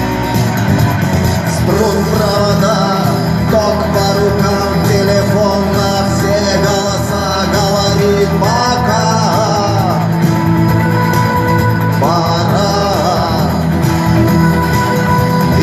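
Rock music with a male vocal and guitar, playing steadily.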